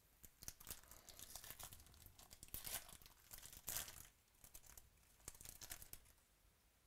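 Foil trading-card pack wrappers being torn open and crinkled by hand: a run of sharp crackles, loudest about halfway through, dying away near the end.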